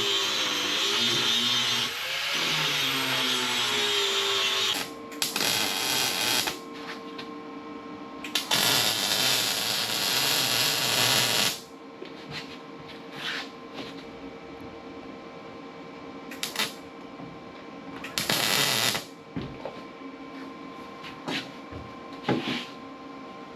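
Background music for the first few seconds. Then a handheld grinder runs with a steady whine and gives loud hissing bursts as it is pressed against the steel drag-back pieces of a sawmill, grinding them down even: three long bursts and several short touches.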